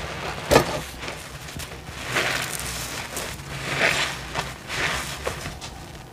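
A large soap-soaked sponge squeezed by hand over a sink full of suds: wet squelches with a bubbly crackle of foam. There are several squeezes a second or two apart, the sharpest about half a second in.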